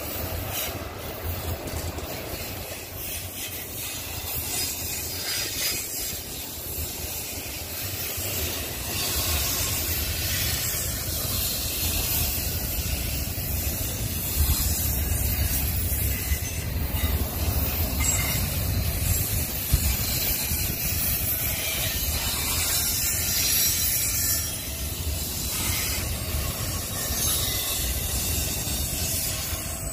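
Double-stack intermodal well cars rolling past, with a steady rumble and hiss of steel wheels on the rails.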